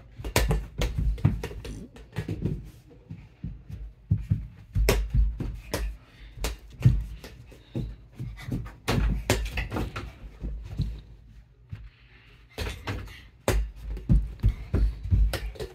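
Small rubber basketball dribbled on a hardwood floor: deep thumps in quick irregular runs, broken by short pauses, the longest about three quarters of the way through.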